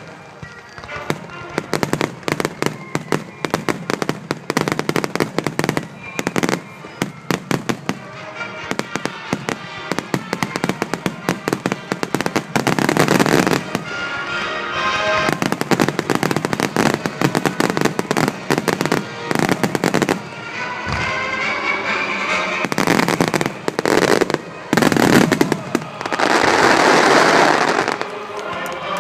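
Aerial fireworks shells bursting in rapid succession, a dense run of bangs and crackles. Two heavy barrages come about midway and near the end. Music from the show's loudspeakers plays underneath.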